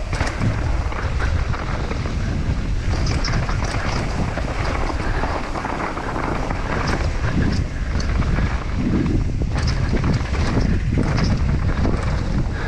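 Wind buffeting the camera microphone of a mountain bike descending a rough dirt trail, a steady rush heavy in the low end, with scattered short clicks and rattles from the bike over the ground.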